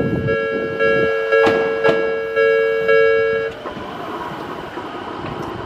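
Level crossing warning alarm ringing steadily in two close tones while a train passes, its wheels knocking over rail joints in quick pairs. The alarm stops about three and a half seconds in, as the crossing clears.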